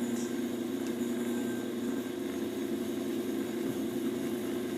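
1964 Maytag automatic washer running with a steady low mechanical hum, not yet in its spin cycle.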